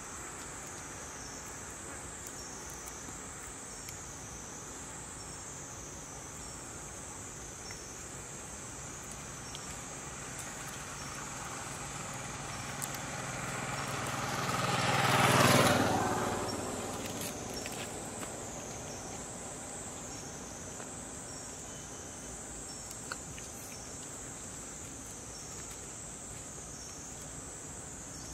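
A steady, high insect chorus whose pitch wavers up and down throughout. Around the middle, a motor vehicle drives past, growing louder to a peak about halfway through and fading away over a few seconds.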